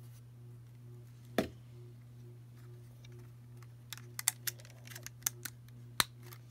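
Plastic Lego pieces clicking as they are handled and fitted together: one sharp click about a second and a half in, then a quick run of clicks near the end, over a steady low hum.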